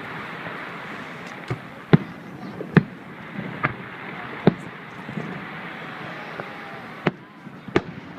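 Fireworks exploding in an aerial display: about seven sharp bangs at irregular intervals, the loudest around two to three seconds in, over a steady background hiss.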